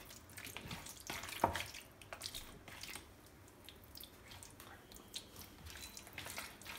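A hand squishing and mixing chicken pieces coated in curd (yogurt) and oil in a plastic bowl: faint, irregular wet squelches and small smacks, the sharpest about one and a half seconds in.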